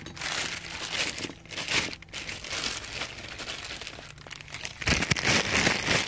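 Plastic bag crinkling and rustling as a new wheel hub assembly is unwrapped from it, loudest near the end.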